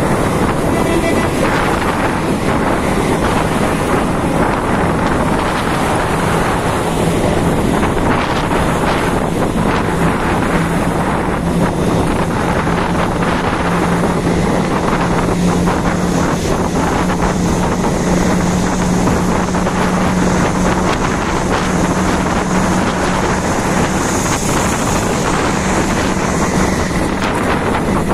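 Wind rushing over the microphone together with the road and engine noise of a bus travelling at highway speed. A steady low drone runs under it through most of the stretch.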